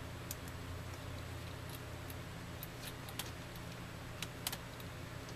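Screwdriver working screws out of a Dell Inspiron 1420 laptop's plastic bottom case: scattered light clicks and ticks, the loudest about three and four and a half seconds in, over a steady low hum.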